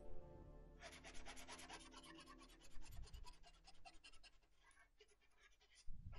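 Broad-tipped marker scratching on paper in quick back-and-forth strokes as an area is coloured in, faint and rapid, trailing off a little past the middle. A low thump near the end.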